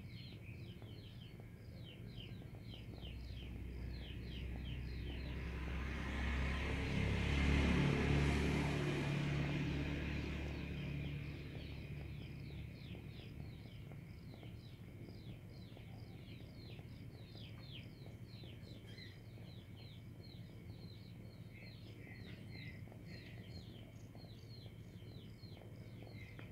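Birds chirping rapidly and steadily, about three to four short chirps a second. A passing vehicle rises under them, loudest about eight seconds in, and fades away.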